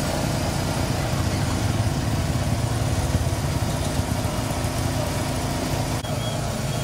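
An engine idling steadily: a low, even hum.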